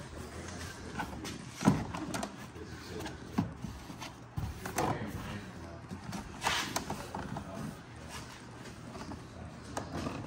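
Plastic front door trim panel of a Ford Expedition being worked loose from the door: a few scattered clicks and knocks as it is pried, jiggled and lifted off its slide-in hook clips.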